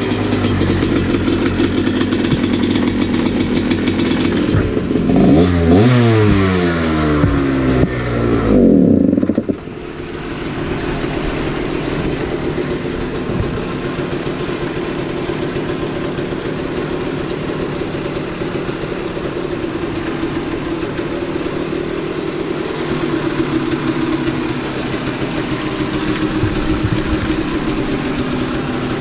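Dirt bike engine idling, revved in several quick rises and falls about five to nine seconds in, then settling back to a steady idle.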